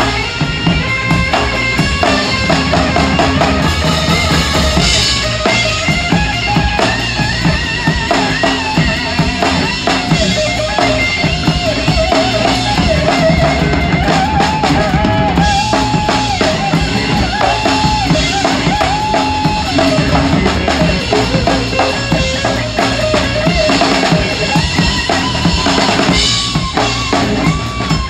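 Live rock band playing hard: a drum kit with a 26-inch bass drum, snare and cymbals struck continuously. Above the drums runs a sustained melody line that bends and wavers in pitch.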